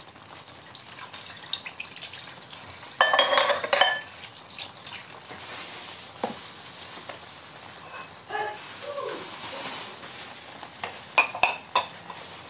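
Tofu sisig in a creamy sauce simmering in a frying pan with a faint steady sizzle, broken by a loud clatter about three seconds in and a few sharp clinks near the end.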